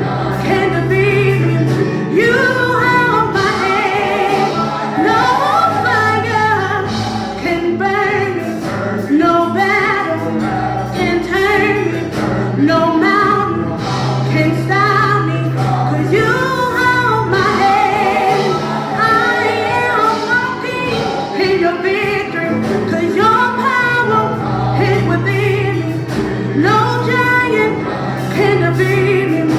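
Gospel worship song: voices singing over instrumental accompaniment, with long held low notes underneath.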